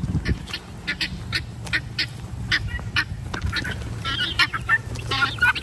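Guinea fowl calling: short, harsh calls repeated about two or three times a second, breaking into a rapid chattering run near the end. The birds are agitated.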